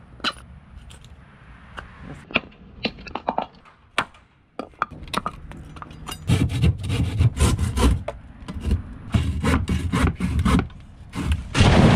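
A few sharp clicks and knocks from tools and hardware being handled, then a handsaw cutting a pine board in repeated back-and-forth strokes. A loud rushing noise starts just at the end.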